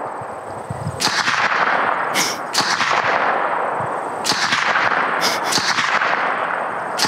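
A string of gunshots, several sharp reports at uneven intervals, some in quick pairs, each trailing off in a long rolling echo.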